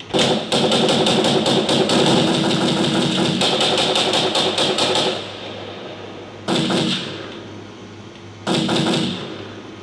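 Layered machine-gun sound effects: a long burst of rapid automatic fire lasting about five seconds, then two short bursts, about six and a half and eight and a half seconds in.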